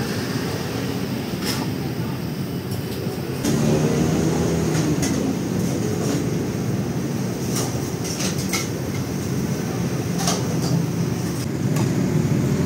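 Steel cleaver chopping boiled pork offal on a thick wooden chopping block: sharp knocks scattered every second or two. Under them runs a steady low rumble of road traffic, which gets louder about three and a half seconds in.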